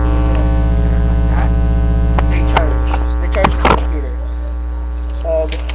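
Loud steady electrical mains hum with many overtones, as picked up by a webcam microphone. A few sharp clicks and knocks come between about two and four seconds in, as things are handled.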